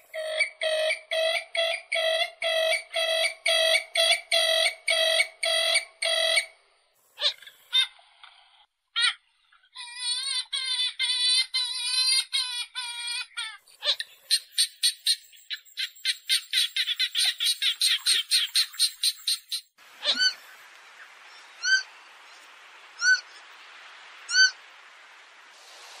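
Purple swamphen (kalim) calls played as a trapping lure: a long run of evenly repeated pitched notes about two a second, then a burst of warbling notes, then a fast train of short high calls. In the last few seconds only a few short chirps sound over a steady hiss.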